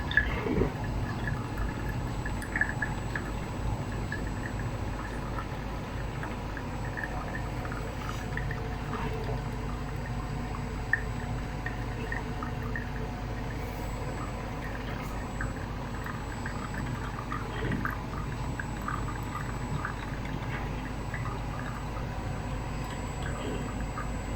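Black & Decker single-serve drip coffee maker brewing: hot water trickling and dripping steadily into the travel mug, with many small irregular pops.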